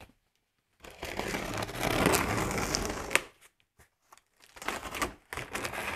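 Packing tape on a cardboard box being slit open along the seam with a small blade-like tool: one long scratchy stroke of about two seconds starting about a second in, then a few shorter strokes near the end.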